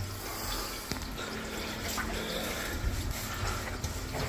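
Water running and trickling through a freshly patch-lined drain pipe during a flow test for leaks, with a few faint clicks.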